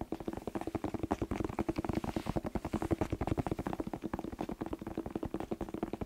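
Fingertips tapping fast on a whole red bell pepper held close to the microphone: a rapid, even run of light hollow taps, more than ten a second, over a steady low tone.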